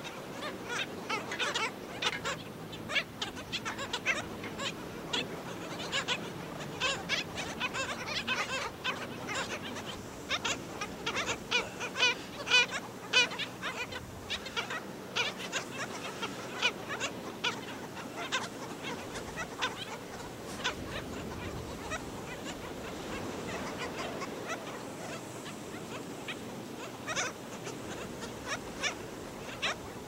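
A black skimmer colony calling: many short, repeated barking calls from several birds, overlapping one another, over a steady background hiss.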